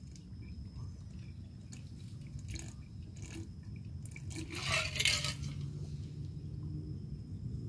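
A hooked fish being played on a fishing rod from the bank: a few light clicks, and a short rushing splash about five seconds in, over a steady low rumble.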